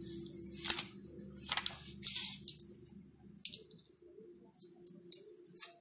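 Steel motorcycle gearbox pinions and washers clinking as they are handled and slid onto the gear shaft by hand: about half a dozen light, separate metallic clicks spread over several seconds.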